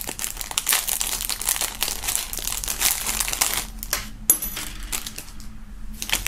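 Thin clear plastic wrapping crinkling and rustling as it is pulled off a keychain by hand, with a sharp click that rings briefly about four seconds in.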